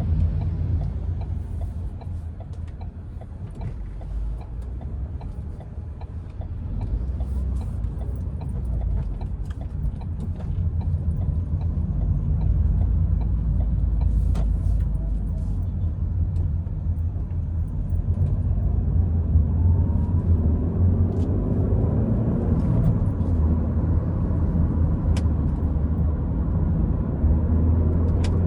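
Car driving, heard from inside the cabin: a steady low engine and road rumble with small rattles, and the engine note rising as the car speeds up about two-thirds of the way through.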